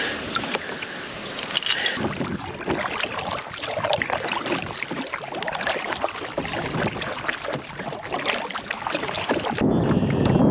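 Water splashing and sloshing around a fishing kayak, with many small knocks and crackles. It grows louder and lower about ten seconds in.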